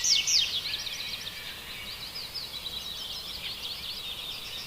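Small birds chirping and twittering: a dense run of quick, high, downward-sliding chirps, loudest in the first second and then fainter.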